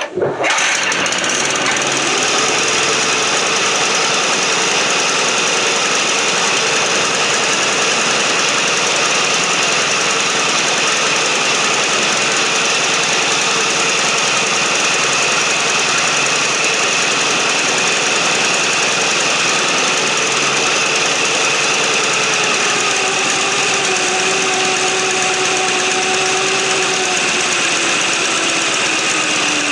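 Baja Doodlebug 97cc single-cylinder four-stroke mini bike engine starting and running steadily at fast idle, its idle screw turned all the way up. A tone in the engine sound sags slightly in pitch over the last several seconds.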